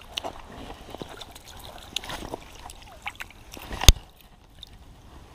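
Footsteps on dry fallen leaves and gravel, with scattered small rustles and clicks, then one sharp knock a little before four seconds in.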